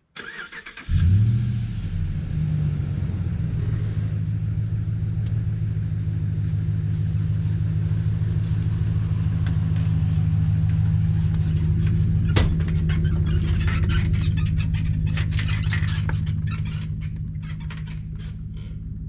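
Vehicle engine starting about a second in, then running steadily with a low, even hum, fading out near the end; a single sharp click about twelve seconds in.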